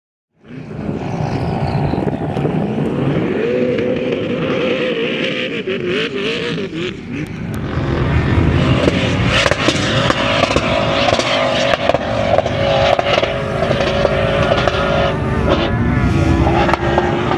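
Four-wheel-drive SUV engine revving hard under load while climbing a sand dune. It starts about half a second in, its pitch rising and falling, then runs louder at high revs from about eight seconds in.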